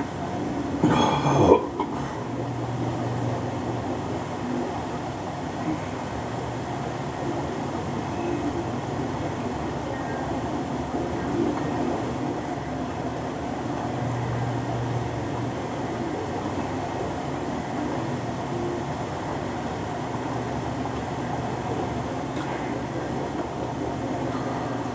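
Diet Coke being drunk straight from a 2-liter plastic bottle: steady low glugging and swallowing, with a short louder sound about a second in.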